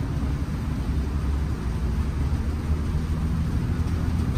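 Bus engine and tyre noise on a wet road heard from inside the driver's cab while driving: a steady low rumble with a hiss above it.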